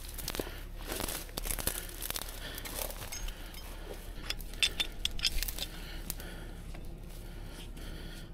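Dry brush crackling and rustling as someone pushes through it on foot, with two denser bursts of snapping twigs, about a second in and again around four to five seconds in.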